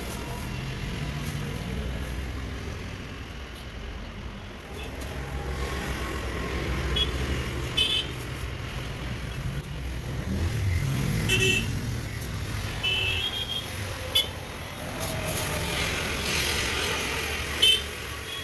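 Road traffic running past, with several short vehicle horn toots.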